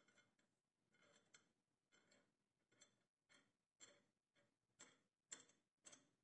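Faint, irregular metallic clicks of a steel wing nut being turned by hand on a hacksaw's threaded blade-tension bolt, tightening the blade. About a dozen clicks, roughly two a second, growing louder toward the end.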